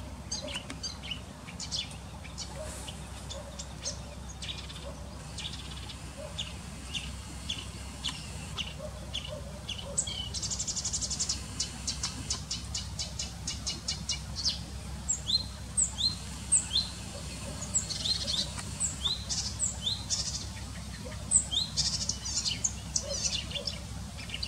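Acrocephalus warbler singing a long, fast, varied song of chattering notes and trills, with a dense trill about ten seconds in and then a run of short rising and falling whistled slurs.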